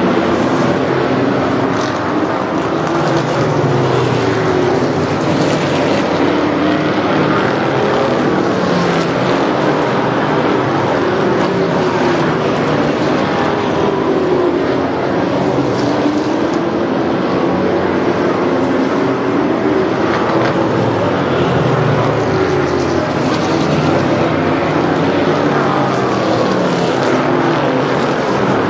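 A pack of Thunder Car class stock cars racing on a paved oval, several engines running hard at once, their pitch rising and falling as the cars go round.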